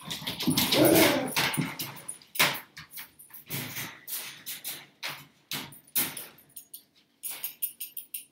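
Pet dogs barking and whining in excitement. A louder cry comes about a second in, then a run of short barks about twice a second.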